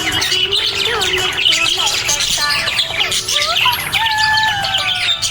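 Budgerigars chirping and warbling busily, with many quick overlapping chirps and a long falling whistle about four seconds in.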